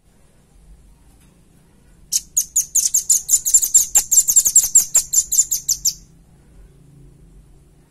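Velvet-fronted nuthatch calling a fast, high-pitched trill of short notes, about eight a second. It starts about two seconds in and lasts about four seconds.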